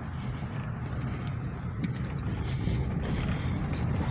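Car's engine and tyre noise heard from inside the cabin while driving slowly: a steady low rumble.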